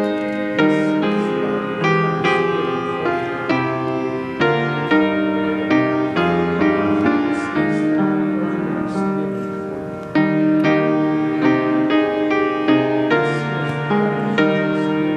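Piano music: melody notes and chords struck one after another, each fading before the next.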